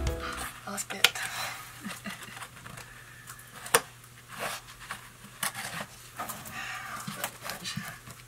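Hand tools scraping and knocking at a hard laminate-covered surface, in irregular clicks, scrapes and sharp knocks, one louder knock near the middle, as old arborite laminate is prised off wood. A faint steady hum lies underneath.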